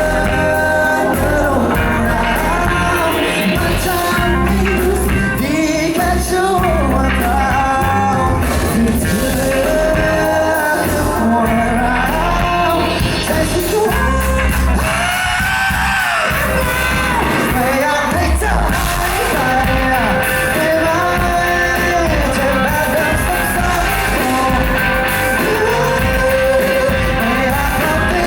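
Live pop-rock band playing, with a lead vocalist singing the melody over guitars, bass and drums.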